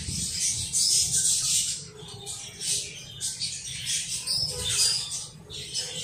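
Budgerigars chattering: a continuous run of scratchy, rapid warbling chirps in short bursts, over a steady low hum.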